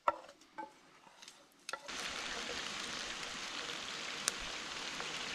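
Chunks of raccoon meat sizzling as they fry in rendered raccoon fat in a metal pan. A few light knocks and clicks come in the first two seconds, then a steady sizzle starts and holds, with one sharp pop partway through.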